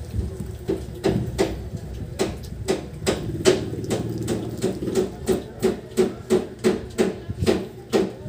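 Shih Tzu eating papaya: rhythmic wet chewing and mouth-smacking, about three smacks a second, steadier and louder from about two seconds in.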